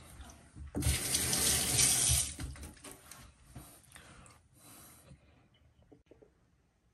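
Kitchen tap running into a sink, a loud, steady rush of water that starts about a second in and stops about a second and a half later, followed by quieter splashing and a few small knocks.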